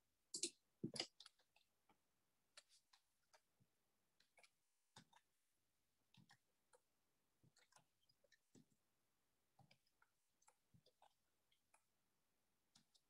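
Faint, scattered clicks of computer keyboard typing and mouse clicking, with a few louder clicks in the first second or so.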